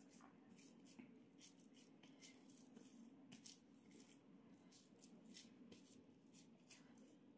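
Faint, irregular wet squelching and crackling of bare hands pressing raw minced beef into a burger patty, over a steady low hum.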